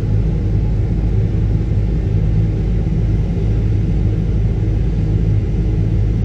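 Steady low drone of a combine harvester's engine and threshing machinery running at working speed, with an even hum of a few low pitches.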